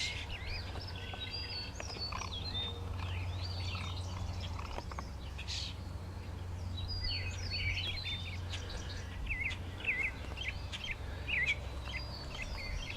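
Several songbirds chirping and singing, with short quick notes and up-and-down phrases in many overlapping calls, over a low steady hum.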